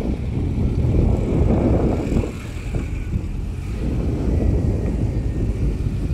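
A car driving, its engine running steadily under road and wind noise.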